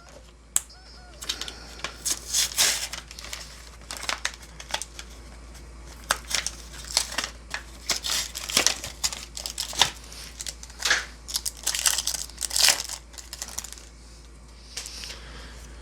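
Foil booster-pack wrapper of Yu-Gi-Oh trading cards crinkling and tearing as it is opened and handled, in irregular bursts of rustling.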